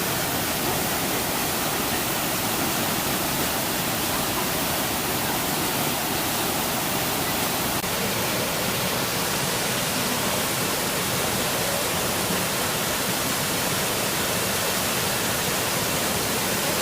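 Steady rush of falling water from a waterfall, an even wash of noise at a constant level, shifting slightly in tone about eight seconds in.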